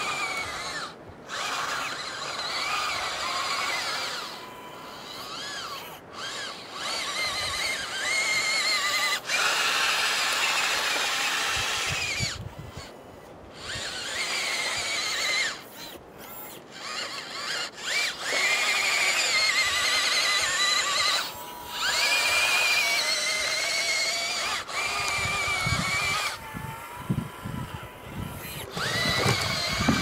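RC scale bulldozer's electric drive motors and gearboxes whining, starting and stopping again and again, the pitch rising and falling as its speed changes. Low knocking near the end.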